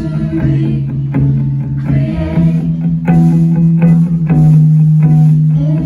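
Live rock band playing: electric guitar chords over held bass notes and drums.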